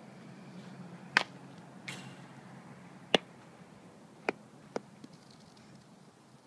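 Sharp knocks of softball batting practice, bat and ball impacts, five in under four seconds, the first and third loudest.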